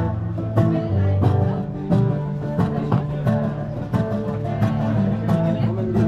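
Street musician playing acoustic guitar, a steady picked accompaniment with a low bass line under it.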